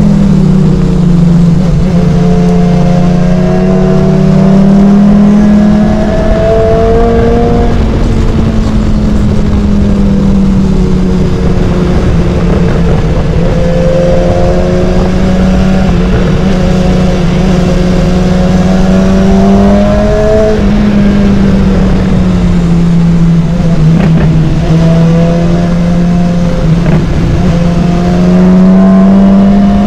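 BMW S1000XR's inline-four engine running under way, its note rising under throttle and dropping back several times, with wind rush over the microphone.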